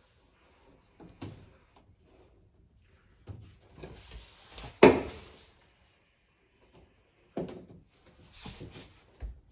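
Scattered knocks, clunks and scrapes of washing machine parts being handled during a door seal replacement, with one sharp, loud knock about five seconds in.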